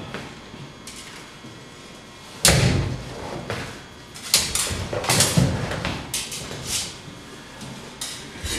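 Fencers' feet thumping and stamping on a wooden floor, mixed with sharp clashes of rapier and dagger blades. After a quiet start comes a heavy thud about two and a half seconds in, then a quick run of further knocks and clashes.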